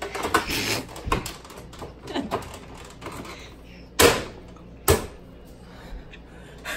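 Bottles and jars being handled in a refrigerator's door shelves: a run of small clicks and knocks, then two sharp knocks about four and five seconds in.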